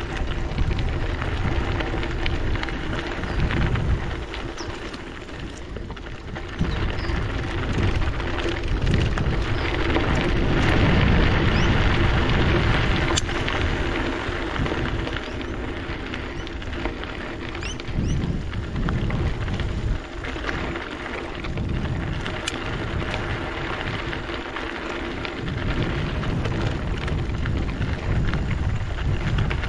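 Wind buffeting the microphone over the rolling rumble and crunch of mountain-bike tyres on a dirt bush track, getting louder for a few seconds in the middle.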